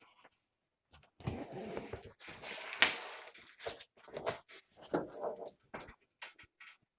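Handling noise: rustling and scraping for about two seconds with a sharp knock near the end of it, then a series of short clicks and knocks.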